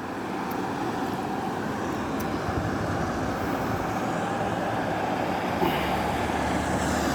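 Road traffic approaching across a bridge, growing steadily louder over the steady rush of the flooded Tongariro River below.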